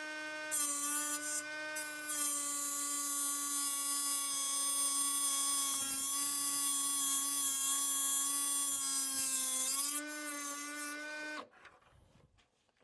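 Electric grinder whining up to speed and grinding a flat onto a steel drill-winch shaft for about nine seconds, a hissing grind over the steady motor whine. The sound cuts off suddenly about eleven seconds in.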